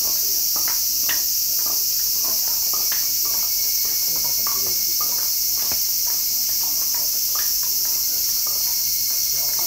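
Loud, steady chorus of cicadas, an unbroken high-pitched shrill, with faint scattered voices underneath.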